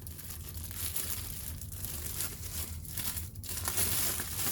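Packaging rustling and crinkling continuously as the newly unboxed impact wrench is unwrapped.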